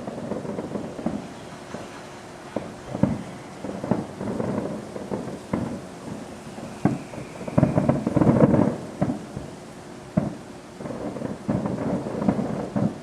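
Distant fireworks going off: a continuous run of pops and crackles with a dense flurry about eight seconds in.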